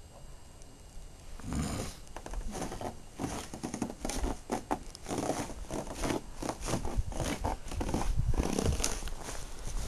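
Footsteps crunching through snow, an irregular run of crunches and rustles starting about a second and a half in.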